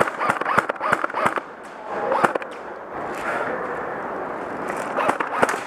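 Airsoft guns firing: a rapid string of sharp pops for the first second and a half, then a few scattered shots about two seconds in and again near the end.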